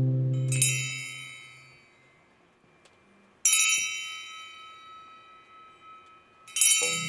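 A small hand-held chime struck three times, about three seconds apart, each bright metallic ring fading slowly. A harp chord dies away in the first second.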